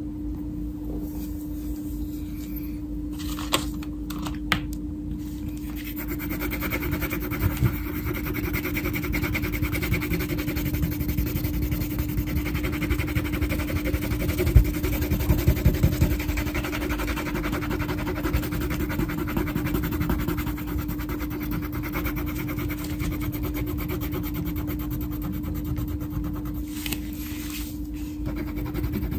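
Wax crayon scribbling back and forth on a paper colouring sheet: a dense, scratchy rasp that starts about six seconds in and goes on over a steady low hum. Two light clicks come a few seconds before the scribbling starts.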